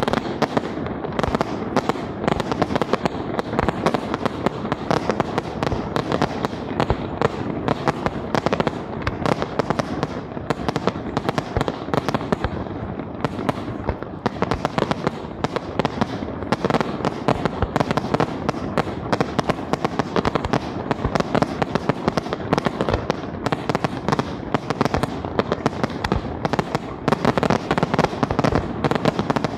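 Fireworks display firing a rapid, continuous barrage of aerial shells bursting in the sky, many sharp bangs a second.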